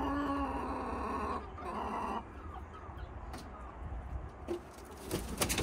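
Australorp pullets clucking in the coop. There is a drawn-out call at the start and another about two seconds in, then a quick rattle of scuffling clicks near the end.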